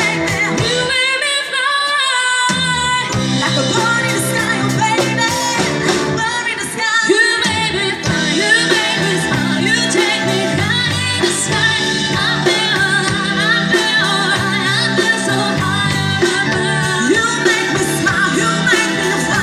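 A live pop-rock band playing, with female vocals over electric guitar, bass guitar, drums and keyboard. The bass and drums drop out about a second in and come back in a second and a half later.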